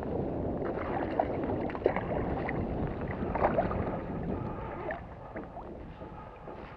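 Water splashing and sloshing as a hooked sea trout thrashes at the surface and is scooped into a landing net. The splashing eases about five seconds in, as the net is lifted clear of the water.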